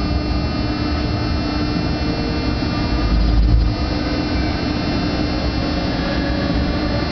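Inside the cab of a class 162 electric locomotive under way: a steady electrical hum and several whining tones from the traction equipment, two of them slowly rising in pitch in the second half, over a low running rumble.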